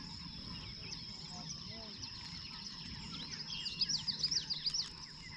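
Outdoor pond ambience: a steady high insect drone with small birds chirping, then a quick run of sharp rising and falling chirps about three seconds in.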